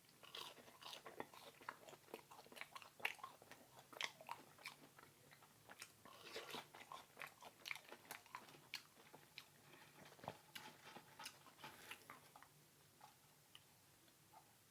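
Close-miked chewing of food with many short, sharp mouth clicks. They are dense for most of the stretch and thin out near the end.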